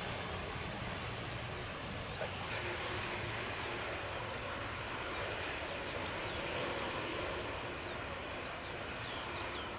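Jet engines of an Airbus Beluga ST rolling out along the runway after landing, ground spoilers up: a steady, distant rumble and hiss.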